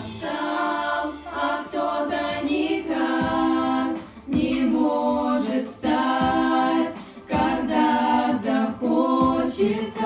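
A group of girls singing a cappella in harmony, in held phrases of a second or two with short breaks between them.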